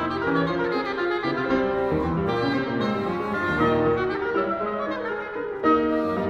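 Chamber trio of English horn, clarinet and piano playing a romantic-era classical serenade, the two wind instruments carrying interweaving melodic lines over piano accompaniment, with a louder entry about five and a half seconds in.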